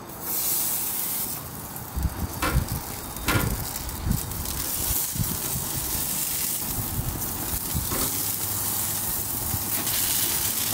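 Beef short ribs sizzling steadily on the hot grates of a gas barbecue grill, with a couple of sharp metal clinks of tongs against the grate about two and a half and three and a half seconds in.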